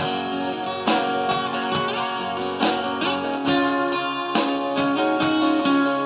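An unplugged band plays an instrumental passage: acoustic guitars strum roughly once a second over a bass guitar, under a held melody line.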